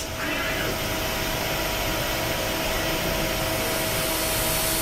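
CNC milling machine running on metal, a steady rushing noise with a constant whine from the spindle.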